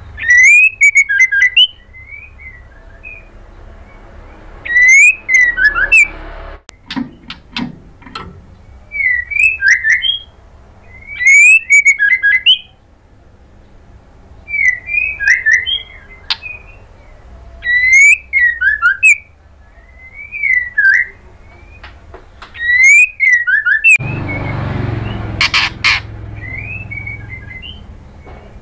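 White-rumped shama calling in short bursts of quick whistled and harsh chattering notes, about one burst every one to two seconds; the uploader presents it as a female shama calling for a male. Near the end a louder rush of noise with a few sharp clicks comes in over the calls.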